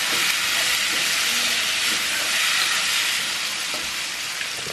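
Chicken and masala frying in a hot wok, a steady sizzling hiss.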